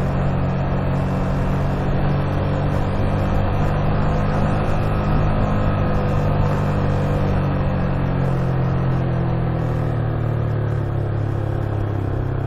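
Motorcycle engine running steadily under way, its pitch easing slightly lower in the second half.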